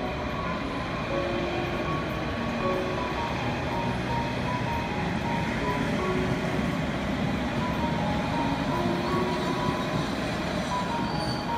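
London Underground S Stock train running along the platform, its wheels and motors making a steady rail noise, with background music playing a simple stepping melody over it.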